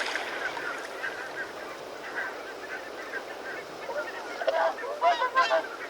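A group of swans calling, many short calls scattered throughout, with a louder burst of several calls close together near the end.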